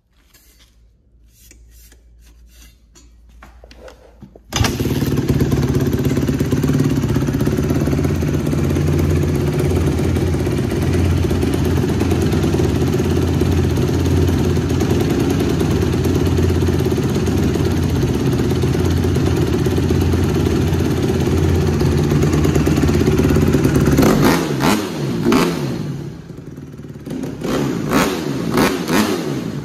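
A 2016 Honda CRF150R's single-cylinder four-stroke engine, freshly valve-adjusted and tuned up, catches about four and a half seconds in after a few faint knocks and runs at a steady idle. Near the end the revs rise and fall unevenly as the throttle is worked.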